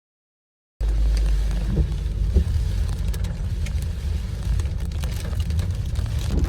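After about a second of dead silence, the steady low rumble of a moving vehicle, with a few faint clicks.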